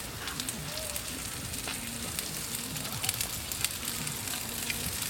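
Food sizzling in a frying pan: a steady hiss with scattered sharp pops and crackles.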